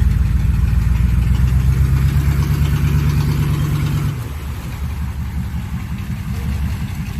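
Off-road vehicle's engine running under light throttle, then dropping back to a lower idle about four seconds in.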